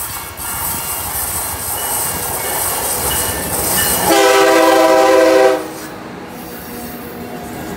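Amtrak Acela Express electric trainset approaching and running past. About four seconds in, its horn sounds one held chord for about a second and a half, the loudest part. Before and after the horn, the train's rolling noise carries on.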